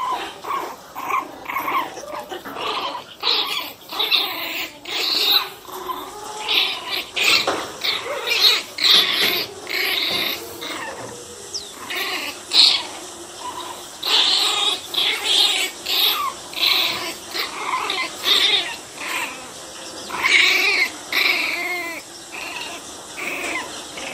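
Pinscher puppies yapping in short, high-pitched barks, over and over in quick irregular bursts as they play-fight.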